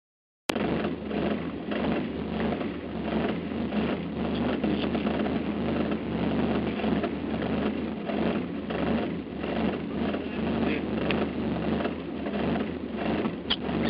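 Rally car's engine idling steadily at a constant pitch, heard from inside the cabin while the car stands at the stage start.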